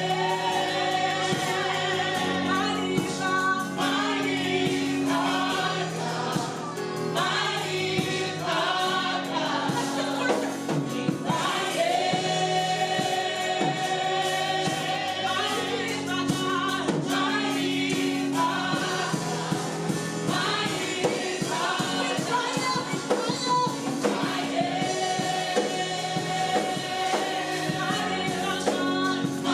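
Gospel music: a choir singing with instrumental accompaniment and a steady bass line.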